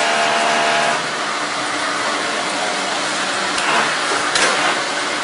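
Baram automatic wall-plastering machine running with a steady mechanical noise. A humming tone drops away about a second in, and two sharp clicks come near the end.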